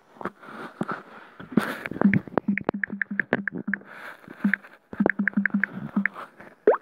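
Key taps on a tablet's on-screen keyboard: two quick runs of clicks, about five a second, as a name is typed. A short, loud rising squeak comes near the end.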